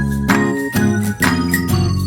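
Background music: an upbeat instrumental with bright struck notes, about two a second, over a steady bass.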